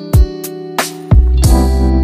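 Music with guitar and percussive hits, a deep bass coming in about a second in.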